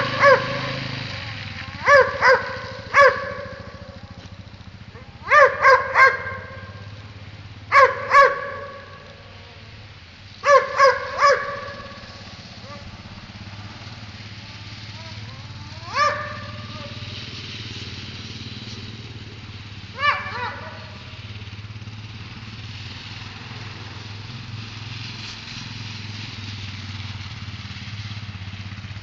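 A dog barking in short runs of one to three barks, several seconds apart, growing sparser and stopping about two-thirds of the way through. Under the barks, a quad's engine drones steadily, louder at the start and fading over the first few seconds as it moves off.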